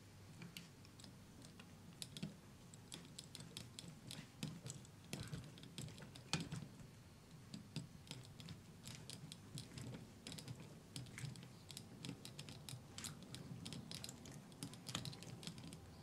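Small screwdriver turning a tiny screw into a plastic model truck chassis: faint, irregular clicks and scrapes of the blade in the screw head and of the part shifting, with a slightly louder knock about six seconds in.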